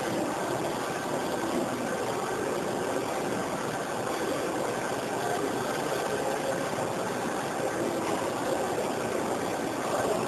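Johnford ST-80CX CNC slant-bed lathe running, a steady mechanical noise with no clear pitch.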